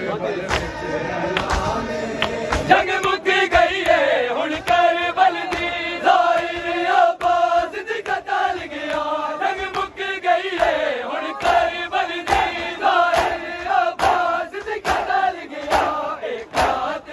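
Large crowd of men chanting a Punjabi noha in chorus, with the regular slaps of matam, hands striking bare chests, keeping a steady beat.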